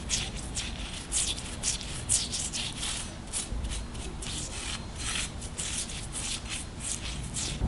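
Hand sanding with abrasive paper, quick back-and-forth strokes about two or three a second.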